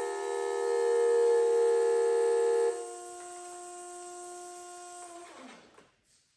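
Homemade Federal Signal Thunderbolt 1003 replica siren holding a steady chord of tones. Its loudest tone drops out a little over halfway in, and the rest carries on quieter before winding down, falling in pitch and fading out shortly before the end.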